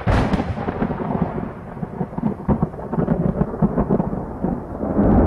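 Thunder sound effect: a sudden loud crack followed by a long rolling rumble full of crackles, with another swell near the end.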